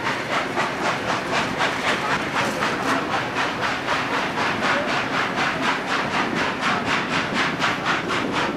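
Steam train running at speed: the locomotive's exhaust beats in a fast, even rhythm of about four chuffs a second over the running noise of the carriage wheels on the rails, heard from a carriage window.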